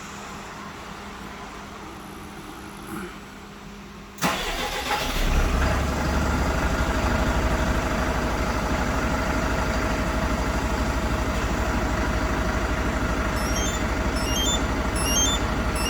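Tata Daewoo The Cen truck's diesel engine remote-started by a smartphone starter after a 10-second preheat: it cranks about four seconds in, catches and settles into a steady idle. Faint repeating high beeps join near the end.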